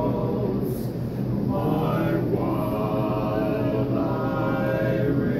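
A male vocal quartet singing a cappella in close harmony, holding long chords with a brief breath about a second in.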